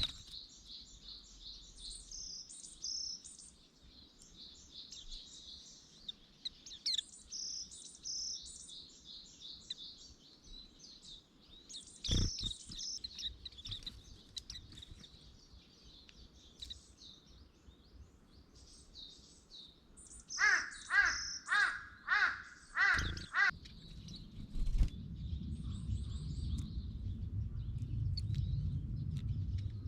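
Small wild songbirds chirping and singing in quick, high, repeated notes. About twenty seconds in, a larger bird gives a run of six loud calls. A low rumble builds near the end.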